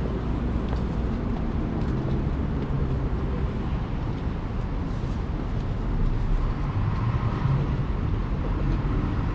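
City street ambience: a steady rumble of traffic, with a vehicle's engine hum growing louder from about six seconds in.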